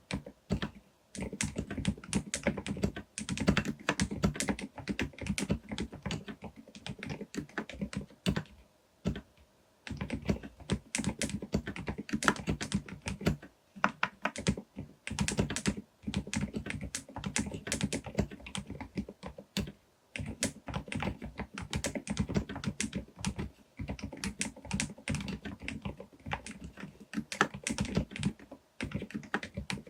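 Typing on a Groovestone GV10M-8K mechanical keyboard fitted with silent Milky S 38 g switches, keys struck firmly: fast, dense runs of keystrokes broken by short pauses every few seconds.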